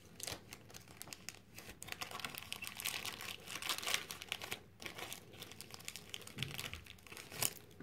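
Clear plastic packaging bag crinkling and crackling as it is handled and pulled open by hand, irregular crackles throughout with a louder one near the end.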